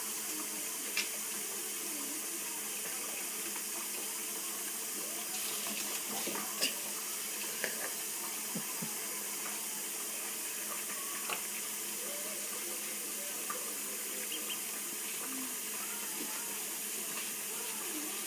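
Kitchen faucet running a thin stream into a shallow pool in a stainless steel sink: a steady splashing hiss, with a few brief clicks and splashes as two ducklings move about in the water.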